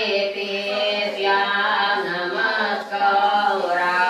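Unaccompanied melodic chanting of Islamic devotional verse, with long held, ornamented notes and two short breaks between phrases.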